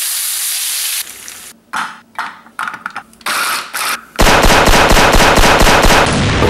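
Bacon sizzling in a frying pan. After that come several short irregular bursts, matching an electric food chopper being pulsed. From about four seconds in, a loud rapid rattle runs at about five strokes a second for roughly two seconds.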